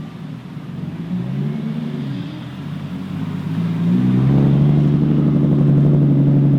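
Car engine revving and pulling away, its pitch rising and falling, then holding a louder steady note from about four seconds in.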